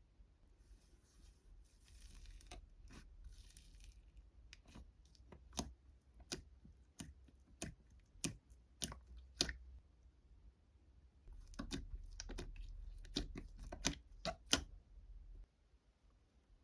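Close-up rustling, then a run of short sharp crunches, roughly one or two a second, with a denser cluster of them near the end.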